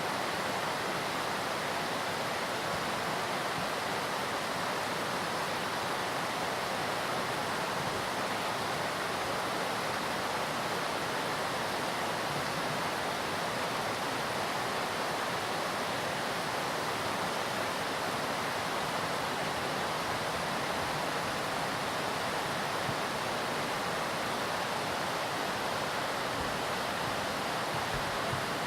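Hakusen Falls, a high-volume waterfall, pouring steadily: an even, unbroken rush of falling water.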